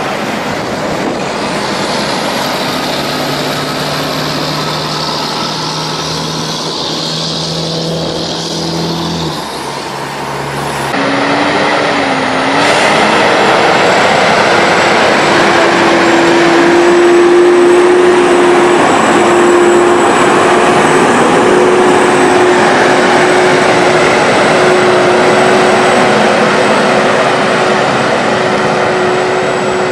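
Heavy-haulage trucks' diesel engines running under load as they pull oversize loads past, with tyre and road noise. The sound changes suddenly about eleven seconds in. After that, a Mercedes-Benz Actros tractor hauling a multi-axle low-loader gives a steady engine drone with a held whine.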